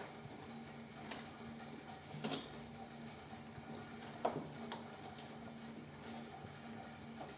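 A few light taps and scuffs from kittens playing, the loudest about four seconds in, over a faint steady hum.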